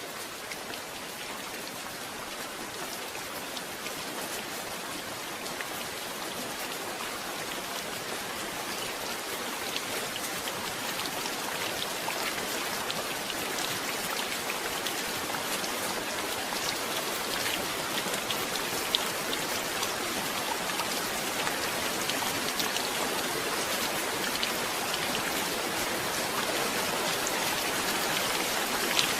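Steady heavy rain, with the patter of individual drops striking a surface, growing slowly louder throughout.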